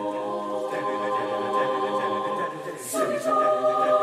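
Choir singing a held chord; about three seconds in the voices move to a new, louder chord.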